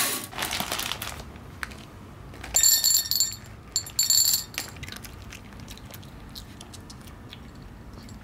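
Dry pet kibble poured from a plastic bag into a bowl in two pours, the pieces rattling and clinking into the bowl, followed by scattered light clicks. Just before, at the very start, a window blind is rattled as it is opened.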